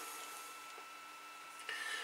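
Quiet room tone with a faint steady whine, and a brief soft scrape near the end as a small screwdriver and the camera's lens assembly are handled.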